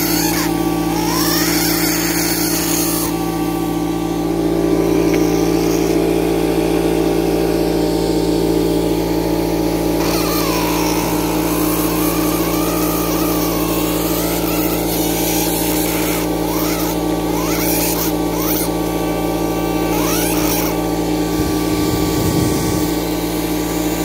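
Pen-style fossil-preparation scribe buzzing steadily as its tip chips chalk matrix away from an ammonite shell. A higher wavering whine rides on the buzz in the first few seconds and again about ten seconds in.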